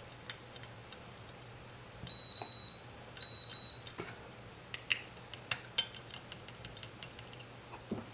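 Continuity tester beeping twice, each a steady high beep about half a second long, the sign that the probes are touching two electrically connected points; after that come short light clicks of test probes tapping on metal contacts, over a faint low hum.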